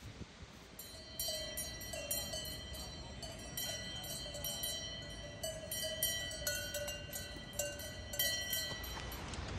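Cowbell on a grazing cow's collar clanking irregularly, about three knocks a second, each knock ringing on; it starts about a second in.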